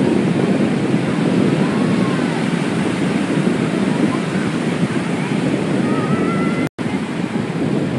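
Ocean surf breaking and washing up the shore, with wind buffeting the microphone. The sound drops out for an instant about three-quarters of the way in.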